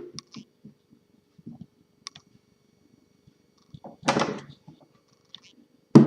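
Faint clicks and handling of a wooden typewriter case, with one louder thunk about four seconds in.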